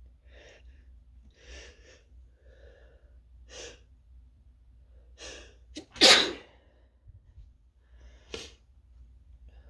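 A person sneezing: several short, sharp inhales over the first few seconds build up to one loud sneeze about six seconds in, followed by another short breath near the end. The person takes the sneezing as a sign of coming down with something.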